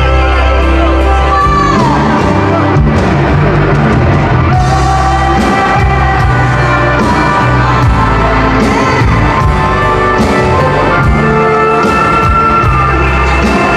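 Live pop band performance: a woman singing lead, holding long notes and sliding between them, over electric guitar, bass and drums with a steady beat.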